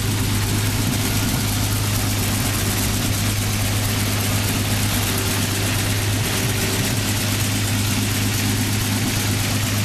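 Willys Jeepster's Lightning flathead six-cylinder engine idling steadily.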